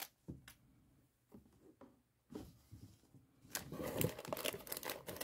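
Plastic LEGO parts bags full of loose bricks rustling and crinkling as they are handled. There are a few faint, sparse rustles at first, then steady crinkling starts about three and a half seconds in.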